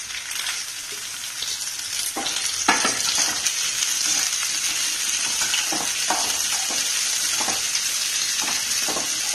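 Cubed capsicum and onion frying in hot oil in a metal kadai: a steady sizzling hiss, louder from about three seconds in, with a metal spoon scraping and knocking against the pan as they are stirred.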